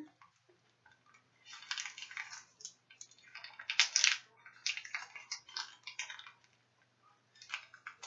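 Clear plastic adhesive dressing crinkling and rustling under the fingers as it is pressed and smoothed over an implanted chest port, in irregular bursts.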